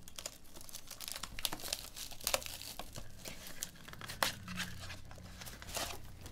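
Clear plastic shrink wrap crinkling and tearing as it is pulled off a cardboard trading-card box: a continuous irregular crackle with a few sharper snaps.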